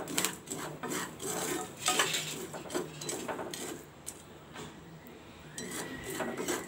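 Steel spatula stirring and scraping through hot salt in a heavy iron kadhai, a quick run of scratchy strokes as black chickpeas dry-roast in the salt. The stirring eases off about four seconds in.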